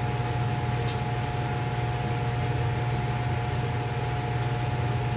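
Steady hum and hiss with a thin steady tone above it, and a faint click about a second in.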